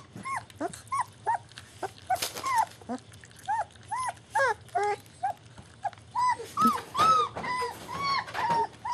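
A young German shepherd dog whining over and over, in short cries that rise and fall at two or three a second, with a few longer cries near the end. It is the whining of a dog shut out and wanting to join in.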